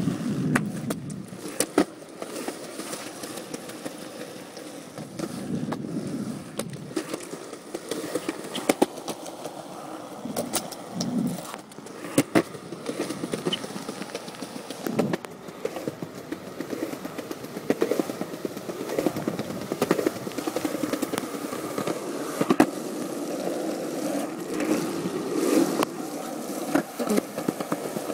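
Skateboard wheels rolling over pavement, a continuous rumble broken by irregular sharp clacks as the board goes over cracks and bumps.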